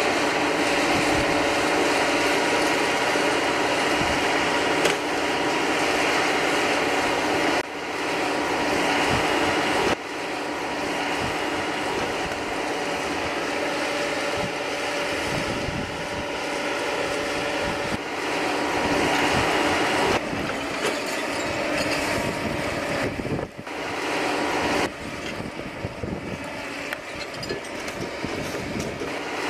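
Caterpillar M315 wheeled excavator's diesel engine and hydraulics running steadily while it works, with the occasional knock. The level drops and shifts suddenly several times.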